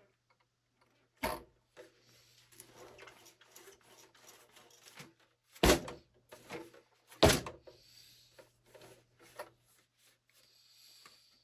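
Handling noises: three sharp knocks, the loudest two about six and seven seconds in, with softer rustling and light clatter between them, as of hard objects being picked up and set down.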